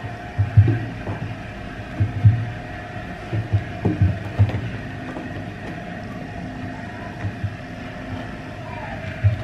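Irregular soft low thuds and bumps, clustered in the first few seconds and again near the end, over a steady faint hum.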